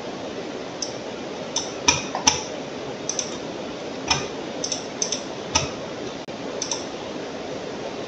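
Computer mouse clicking: about a dozen short, sharp clicks at uneven intervals, some in quick pairs, over a steady background hiss.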